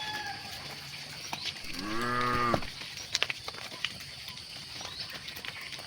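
A cow moos once, a short call of just under a second that rises and falls in pitch, about two seconds in.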